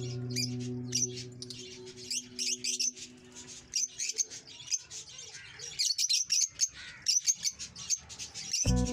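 Lovebirds chirping, many short sharp calls overlapping. Background music with held notes fades out over the first few seconds and comes back just before the end.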